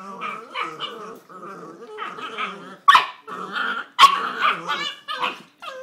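Puppies growling and yapping at each other in play, with two sharp, loud barks about three and four seconds in.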